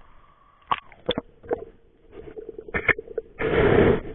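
Water splashing and rushing over the microphone as a speargun-mounted camera goes underwater: a few sharp knocks from handling the gun, then a loud half-second rush of water near the end.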